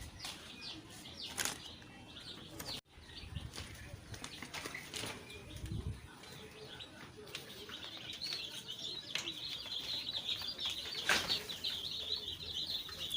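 A crowd of day-old chicks peeping, many short high chirps overlapping into a constant chatter that grows from about halfway in. Scattered rustles and knocks come earlier.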